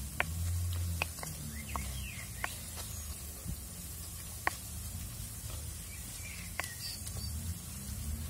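Garlic, ginger and green and dried red chillies frying in hot oil in a pot, stirred with a wooden spoon: a steady sizzle with scattered sharp clicks and pops.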